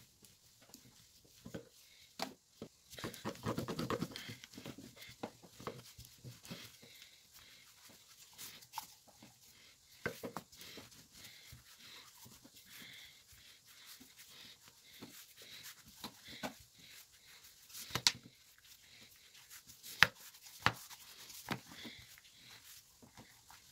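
Wooden rolling pin rolling noodle dough thin on a floured plastic cutting board: faint, irregular rubbing and rolling noise with a few sharp clicks.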